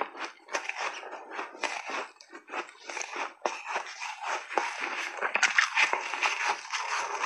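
A person chewing big mouthfuls of soft refrozen shaved ice close to a lapel microphone: a rapid, uneven run of crunches. The gloved hand pressing into the ice in the tub adds its own crunching.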